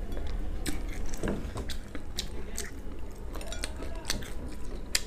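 A person chewing crispy fried chicken close to a lapel microphone, with irregular sharp crunches and wet chewing sounds.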